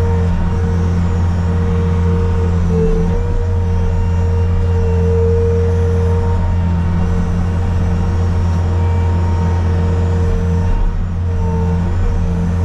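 Bobcat skid steer's diesel engine running steadily at working speed, with a steady whine over it that briefly dips about three seconds in and again near eleven seconds.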